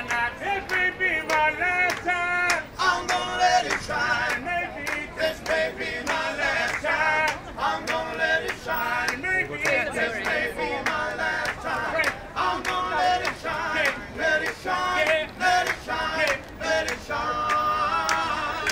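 A street vocal quartet singing a song in harmony, male voices leading.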